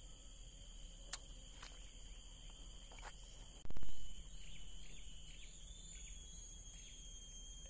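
Insects chirring steadily in several high, unbroken tones. A few faint clicks come in the first three seconds, and a short, loud burst of noise lasts about half a second a little before the four-second mark.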